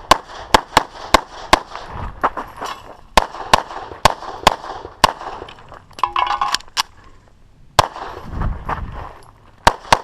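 Pistol shots fired in quick strings during a timed defensive-pistol stage: a dozen or more sharp shots, several close together about three a second, with pauses of a second or two between strings.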